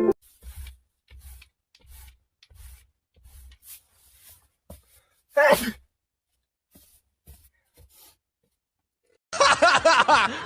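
A person sneezes once, a short loud sneeze about five and a half seconds in, after a few seconds of faint soft thumps. Near the end comes about a second of loud voices.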